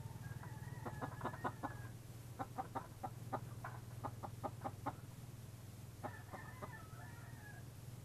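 Domestic chickens clucking: a drawn-out call in the first couple of seconds, then a quick run of about a dozen short clucks, and another drawn-out call near the end, over a steady low hum.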